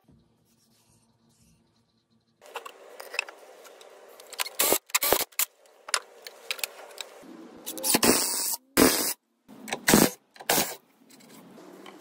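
Hand work with tools on timber: a run of knocks, clicks and scraping, broken by several short, loud bursts of noise.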